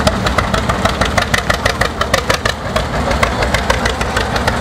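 Two-cylinder engine of an old John Deere tractor running at low speed, with a quick, even popping beat.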